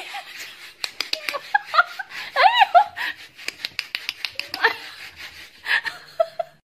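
Kitten mewing in a few short, high, rising-and-falling calls about two and a half seconds in, over a run of quick clicks and taps.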